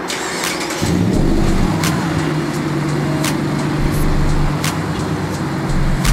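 Background hip-hop beat: a sharp clap or snare hit about every second and a half over a steady deep bass drone that comes in about a second in.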